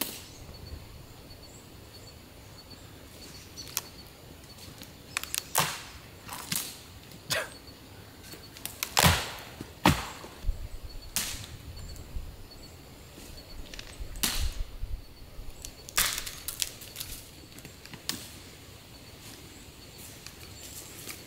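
Dead branches being snapped and broken off a fallen tree for firewood: a dozen or so sharp woody cracks at uneven intervals, the loudest about nine and ten seconds in.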